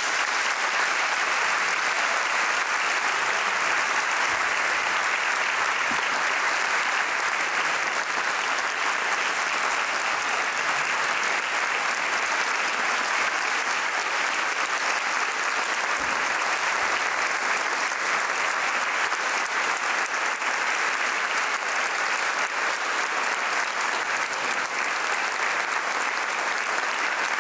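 Theatre audience applauding: dense, steady clapping that holds at an even level throughout.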